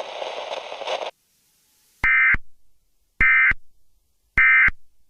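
Emergency Alert System end-of-message: three short, identical bursts of SAME data tones, about a second apart, closing the alert. Before them, a second of noise cuts off suddenly.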